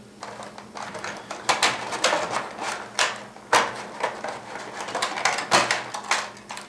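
Plastic packaging and box contents being handled: a busy run of rustles, clicks and knocks, the loudest knocks coming about 1.5, 3.5 and 5.5 seconds in.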